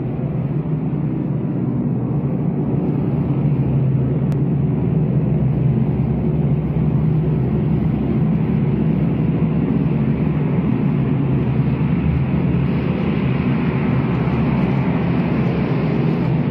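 A loud, steady low rumble with a droning hum, building slightly over the first few seconds.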